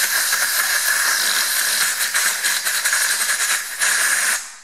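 Compressed air hissing steadily from a blow gun as it blows out the empty injector bore of a Perkins AD3.152 diesel's cylinder head to clean it before the compression tester goes in. The hiss dips briefly once, then cuts off near the end.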